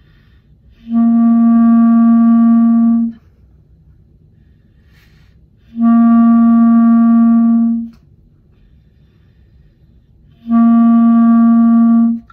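Clarinet playing the note C as three long tones of about two seconds each, every one held steady on the same pitch, with gaps for breathing between them: a long-tone exercise.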